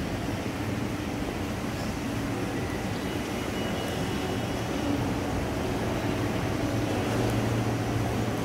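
Steady low rumble and hum of a bus terminal concourse, growing a little louder near the end.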